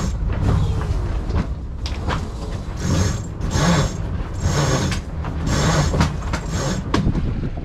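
A yacht's sheet winch ratcheting in a string of short rasping bursts as the headsail sheet is hauled in during a tack, over a steady rumble of wind on the microphone.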